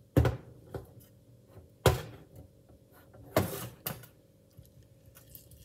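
Three loud knocks about a second and a half apart, the first and last each followed by a softer knock.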